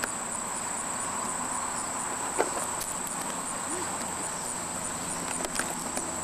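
Insects, crickets or similar, trilling steadily in a high-pitched, evenly pulsing drone, with a sharp click a little over two seconds in.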